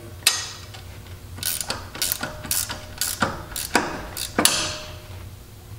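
Hand ratchet tightening an alternator mounting bolt: a run of short ratcheting clicks in repeated strokes of the handle, about every half-second, stopping near the end.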